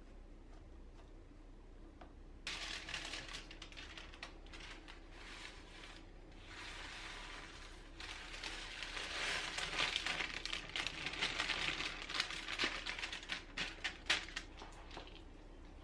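A sheet of baking paper crinkling and rustling as it is handled, starting about two and a half seconds in and louder and denser in the second half. Crunchy crushed bits pour from it into a ceramic bowl with small ticks.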